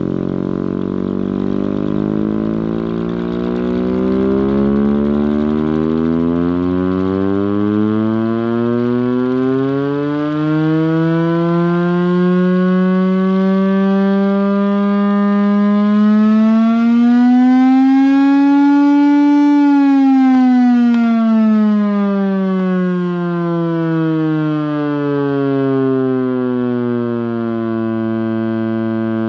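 Chrysler air raid siren, driven by its Hemi V8 engine, sounding loudly. Its pitch climbs, levels off, rises again to a peak about two-thirds of the way through, then falls back and holds a lower steady tone.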